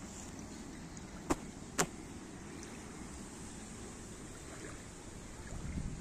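Gusty wind and small waves lapping at a sandy lake shore, a steady rushing noise. Two short sharp clicks come about a second and a half in, half a second apart, and a gust rumbles louder on the microphone near the end.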